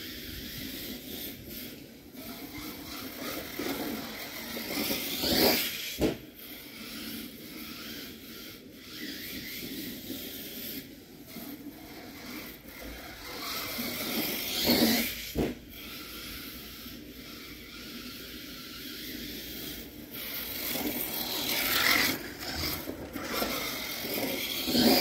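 HSP Savagery RC monster truck driving on a lawn, its running noise surging three times as it speeds up, each surge followed by a short sharp knock.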